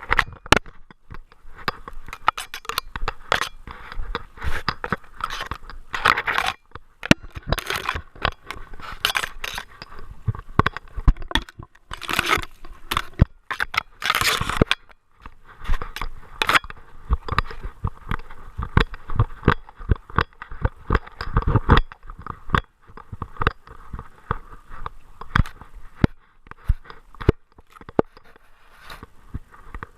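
Irregular close-up crunching and scraping with many sharp clicks and knocks, made by a Great Dane carrying the microphone on its body. There are a few longer scrapes about 6, 9, 12 and 14 seconds in.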